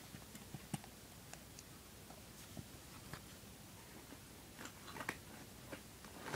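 Faint, scattered clicks and taps of small plastic toy figures and play pieces being handled and set down, a few louder ones bunched together about five seconds in.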